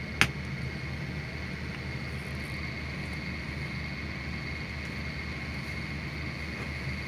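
A single sharp click about a quarter second in as a small plastic wire connector, the drain-pump level sensor lead, snaps into its socket on the air conditioner's control board. Under it runs a steady background hum with a thin high whine.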